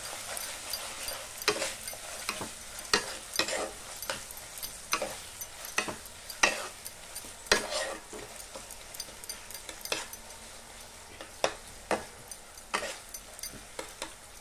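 Metal spatula scraping and knocking against a non-stick kadhai as onions and capsicum in sauce are stirred, with a steady low sizzle underneath. The scrapes come irregularly, about one or two a second.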